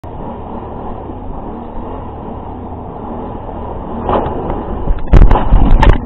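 ATV engine running with a steady low rumble. About a second before the end, a cluster of loud knocks and scrapes hits the microphone as a hand grabs the body camera and jostles it.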